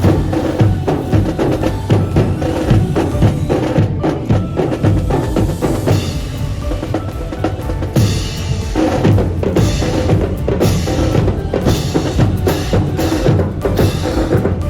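Student brass band playing, with drums beating a steady rhythm.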